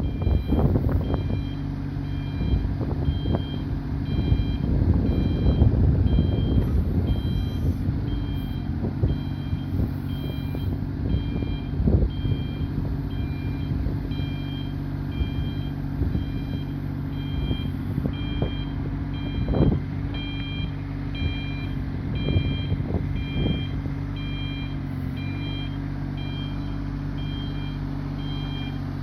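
Carter mini excavator running, its engine a steady hum, with its warning alarm beeping about twice a second and occasional knocks and clanks from the machine, the loudest about 12 and 20 seconds in.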